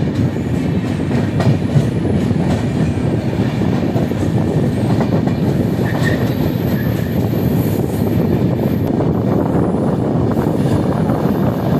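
Express passenger train running along the track, heard from an open coach door: a steady rumble of wheels on the rails.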